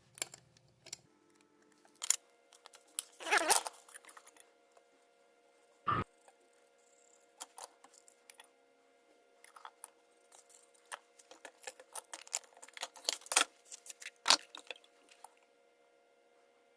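Irregular clicks, taps and scrapes of PVC pipe fittings being handled and fitted together by hand, with a louder knock about six seconds in. A faint steady hum runs underneath from about two seconds in.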